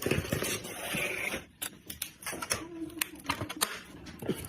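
Irregular sharp clicks and clacks of computer parts being handled and snapped into place during a PC assembly, with a noisy rustle in the first second or so.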